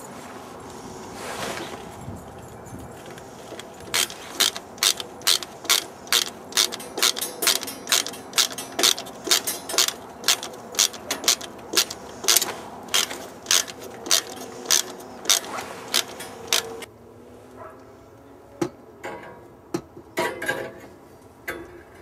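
Hand socket-wrench ratchet clicking in a steady run, about two to three clicks a second, as it drives a 2-inch wood screw through metal strapping. The run stops suddenly, followed by a few scattered clicks.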